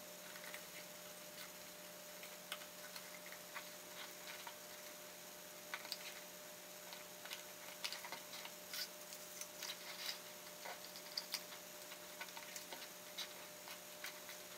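Faint, irregular clicks and taps of stiff pre-folded card pieces being handled and pressed onto a paper polyhedron model, over a low steady hum.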